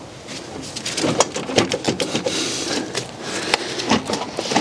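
Irregular clicks, knocks and rattles of metal and plastic parts being handled as the car's front panel is worked into place over the subframe.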